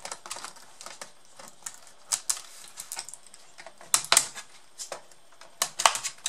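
Irregular sharp plastic clicks and snaps as a screwdriver pries the keyboard out of a Samsung R580 laptop, releasing its retaining clips, with the keys clicking under the hand holding it down. The loudest snaps come about two and four seconds in and again near the end, as the keyboard comes free.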